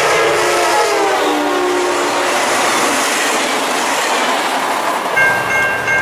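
EMD F59PHI passenger locomotive's horn sounding as the train passes; the horn drops in pitch about a second in. The rush and wheel clatter of the passing train follow. About five seconds in, a grade-crossing warning bell starts ringing.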